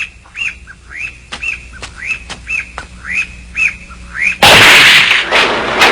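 Cartoon bird chirps, short rising tweets about twice a second, with a few faint taps. About four and a half seconds in, a sudden loud burst of noise lasts about a second.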